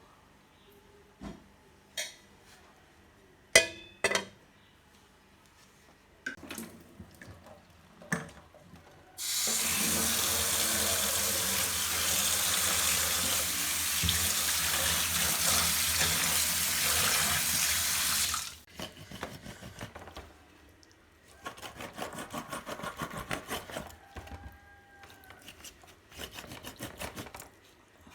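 Kitchen tap running into a sink for about nine seconds, a steady rush of water. Before it come scattered clinks and knocks of kitchenware. After it the water stops suddenly and a quick run of small scraping ticks follows.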